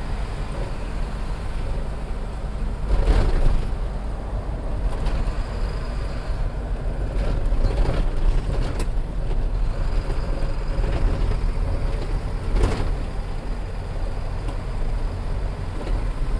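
Road vehicle driving: a steady low drone of engine and tyres, with two louder clunks and rattles, about three seconds in and again later on, as it goes over a rough, potholed road.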